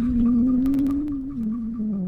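Tractor's electric horn held down: a steady low drone that wavers slightly in pitch.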